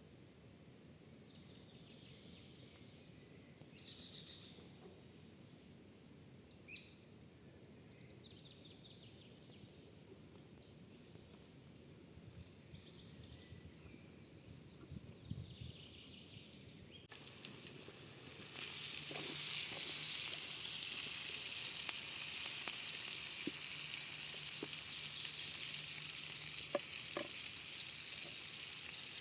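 Faint outdoor ambience with a few bird chirps and a single knock, then, after an abrupt change just past halfway, vegetables frying in a pan over a campfire with a loud, steady sizzle.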